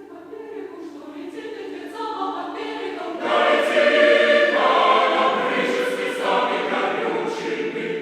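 A choir singing held chords, growing from soft to loud about three seconds in, then gradually easing off near the end.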